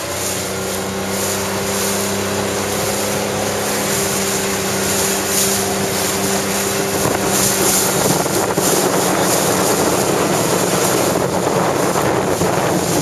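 A boat's outboard motor running at a steady, even hum, under a rushing hiss of wind on the microphone that grows louder about halfway through.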